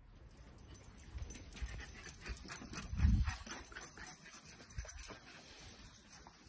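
Dachshunds playing rough on a lawn: scuffling, patter and small dog noises, with a low thump about three seconds in.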